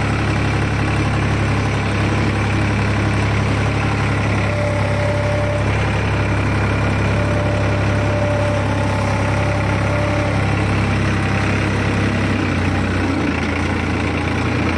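New Holland 3600-2 tractor's diesel engine idling steadily.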